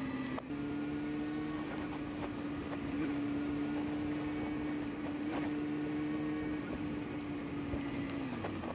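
Honda Hornet 250's inline-four engine running at steady cruising revs, with wind and road noise, heard from the rider's seat. Near the end the engine note drops as the bike slows.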